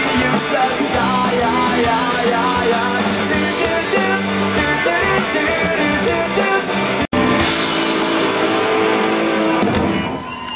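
Live rock band playing a song, with guitar and drums. The sound drops out for an instant about seven seconds in, and near the end the music falls away.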